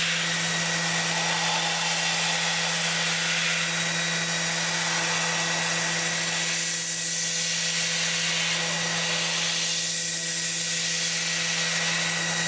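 Doosan PUMA TT1800 CNC turning center running: a steady machine hum under an even hiss with faint steady whining tones, swelling slightly twice in the second half.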